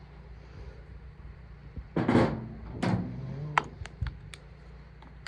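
Light metal-on-metal taps and clicks as a pin is tapped into the baler's knotter, with a louder, longer noisy scrape about two seconds in.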